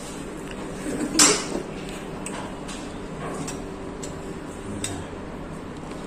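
Light metallic clicks and clinks of hand tools being handled: an aluminium bi-metal cable lug and a snap-off utility knife. A sharper knock about a second in is the loudest, followed by scattered smaller clicks.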